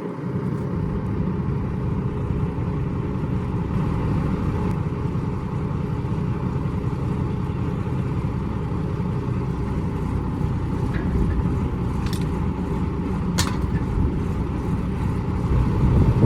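Tractor engine running steadily, a continuous low drone, with a couple of short metallic clicks in the second half.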